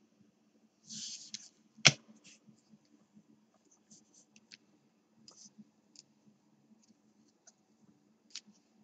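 Trading cards handled by hand: a short sliding rustle about a second in, one sharp click just before two seconds in, then scattered light ticks as cards are flipped off a stack, over a faint steady low hum.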